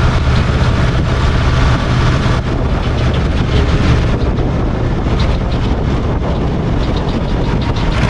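SAME tractor's diesel engine running steadily under way as the tractor drives along a paved road.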